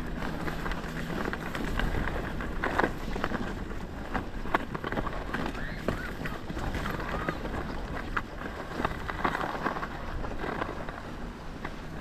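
Shuffling movement across snow: irregular crunching and scraping with scattered sharp knocks, over wind on the microphone.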